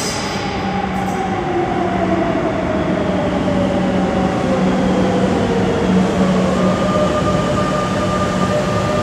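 Madrid Metro train pulling into an underground station: a whine that falls steadily in pitch as the train slows, over a steady rumble of wheels on rails that grows slightly louder as it comes alongside. A thin, higher steady tone joins about two-thirds of the way in.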